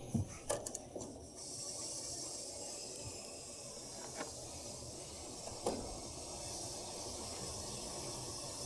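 Steady hiss of refrigerant rushing into a freshly evacuated heat-pump line set as the service valves are opened, with a few light clicks of tools on the valves.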